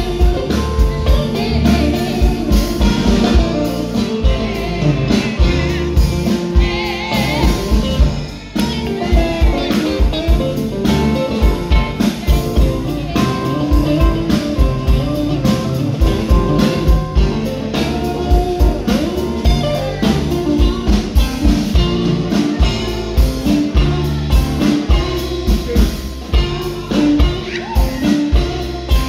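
A band playing a song live, with guitar and drums under a singing voice.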